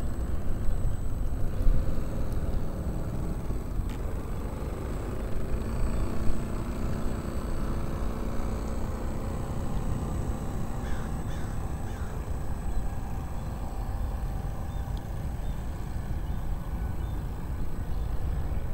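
Wind rumbling on the microphone, with a few short bird calls about eleven seconds in.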